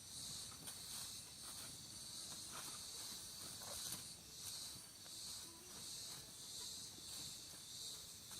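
Crickets chirping steadily at night, with a few faint crackles from the bonfire.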